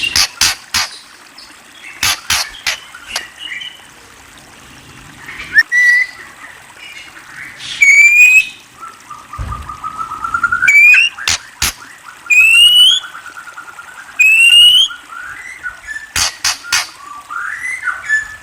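A murai songbird singing: groups of sharp clicks, then loud upswept whistled notes, and a long lower whistle running under them through the middle.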